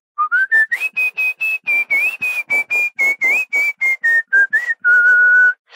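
A man whistling a tune: about twenty short, breathy notes that climb quickly in pitch, wander slowly back down, and end on one longer held note.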